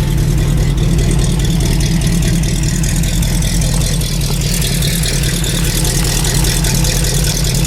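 Freshly rebuilt Ford 351 Cleveland V8 idling steadily just after a cold start, still cold, with a low, even exhaust rumble.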